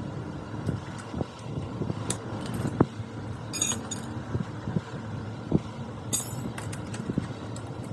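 Motorcycle engine running, with irregular knocks and two short bursts of metallic clinking.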